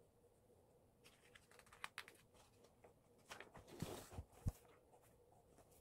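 Pages of a thick paperback workbook being leafed through by hand: quiet paper rustling and light clicks, thickest about four seconds in, with two soft thumps as the pages settle.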